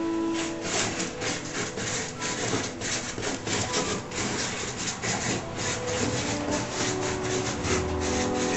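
Felt-tip marker scratching across a large sheet of paper in quick, uneven strokes, a few to the second, as lines of flowing script are written by hand.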